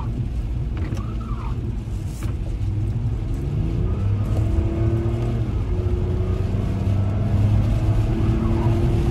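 Inside a Kia car driving on a wet road: steady engine and tyre rumble with a hiss of spray. The engine note rises between about two and four seconds in as the car speeds up, then holds steady.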